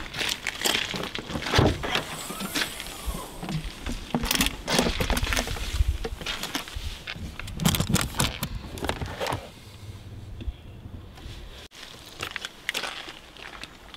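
Footsteps and a run of clicks, knocks and rustles as a car is opened and an aluminium case inside it is handled, growing quieter after about nine seconds.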